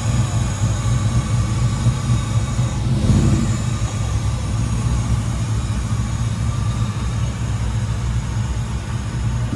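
Pickup truck engine running steadily at low revs with a deep rumble, swelling briefly about three seconds in.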